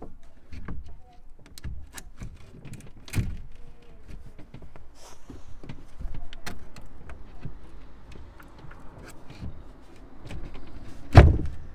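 Wooden OSB board being handled and slotted into notched supports: a string of knocks, clicks and scrapes, with one heavy thud near the end as the board drops into place.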